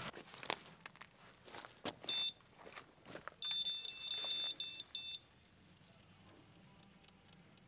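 Electronic carp bite alarm beeping: a short beep about two seconds in, then a long tone and two quick short beeps, the alarm sounding as line moves on the rod. Faint clicks and rustles of handling come before it.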